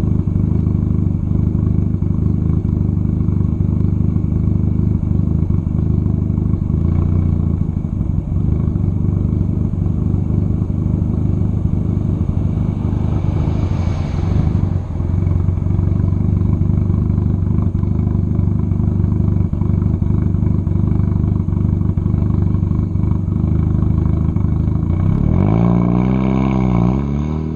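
Turbocharged 1.8T four-cylinder engine of a Volkswagen Jetta Mk4 running steadily at a constant engine speed while driving. Near the end the engine note drops and climbs again.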